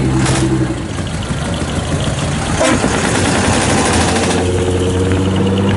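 Heavy decorated trucks' diesel engines running through upright smokestack exhausts, a steady low drone whose pitch shifts about four seconds in. Two brief sharp sounds cut through it, one near the start and one around the middle.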